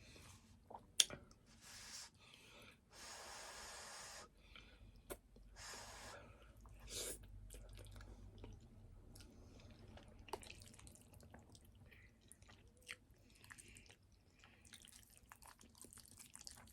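A person chewing spaghetti with meat sauce, with several drawn-out slurps of the noodles, the longest about three seconds in. There is a sharp click about a second in.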